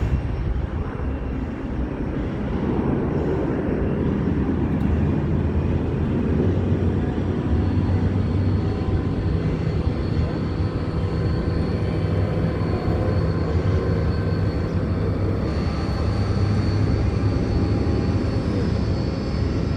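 Jet aircraft engines running: a steady loud rumble, with a high turbine whine coming in about eight seconds in.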